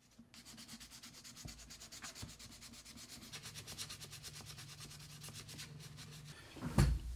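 Hand-sanding the rim of a primed 3D-printed plastic steering wheel pattern, with quick, even back-and-forth strokes at several a second, smoothing down its layer lines. A single louder thump comes near the end.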